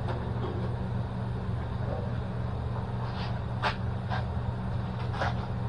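Steady low mechanical hum of shop machinery, with several short metallic clinks about three to five seconds in as metal pieces and tools are handled.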